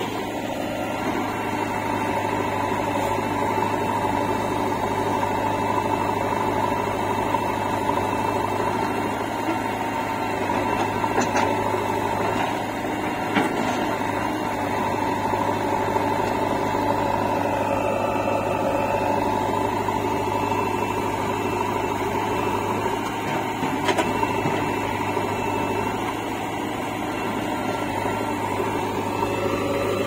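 Diesel engines of a JCB 3DX backhoe loader and a Massey Ferguson tractor running steadily, a constant drone with a higher whine that sags briefly and recovers a little past the middle.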